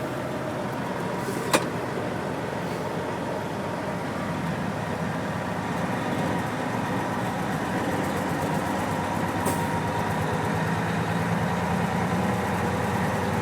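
Semi truck's diesel engine running steadily, slowly getting louder, with a sharp click about a second and a half in.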